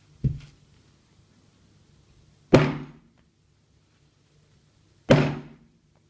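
Hammer blows knocking copper handle scales onto a Victorinox Climber pocket knife. A dull thump comes just after the start, then two loud, sharp strikes about two and a half seconds apart, each ringing out briefly.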